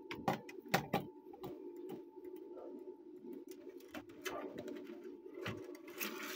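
Scattered clicks and light knocks of hands working wires into an open amplifier's input jacks, the sharpest in the first second, over a steady low hum.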